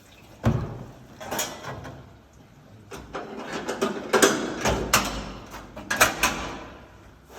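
Irregular mechanical clicks and knocks with short bursts of rustling noise, sparse at first and thickest from about three to six and a half seconds in.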